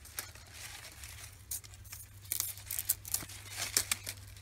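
Knife peeling the rind off a sugarcane stalk: a series of irregular sharp scrapes and cracks as strips of rind tear away.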